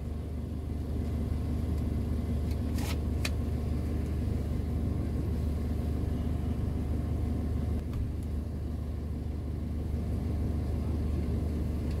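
Citroën Jumper camper van's diesel engine idling steadily, heard from inside the cab, with two short clicks about three seconds in.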